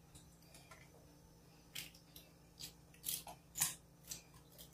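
Faint, short clicks and snips of a small kitchen knife cutting pieces of pineapple held over a stainless steel bowl, a handful of them in the second half.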